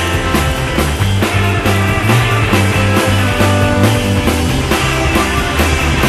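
Rock music with a steady beat and sustained bass notes.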